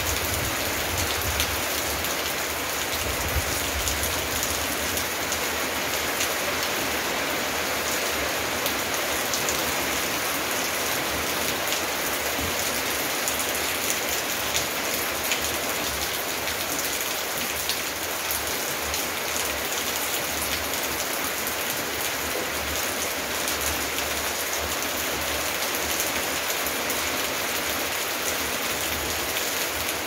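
Steady rain falling on garden foliage and wet paving, with individual drops ticking close by now and then.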